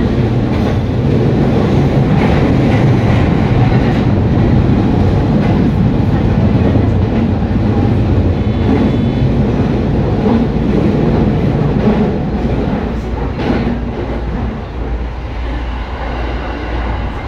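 Electric commuter train running along the track, heard from the front of the train: a steady low rumble of wheels and running gear with scattered clicks from the wheels on the rails, easing slightly a few seconds before the end.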